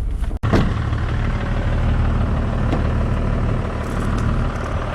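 Toyota Land Cruiser 60-series diesel engine idling steadily with a low rumble, broken by a brief drop-out just under half a second in.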